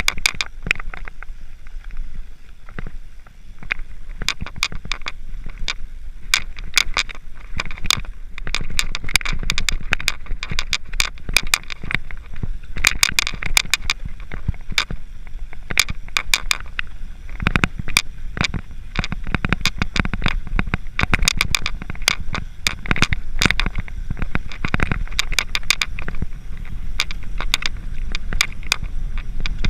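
Mountain bike being ridden over rough dirt and gravel: constant irregular clicking and rattling from the frame, chain and tyres, over a low rumble of wind on the microphone.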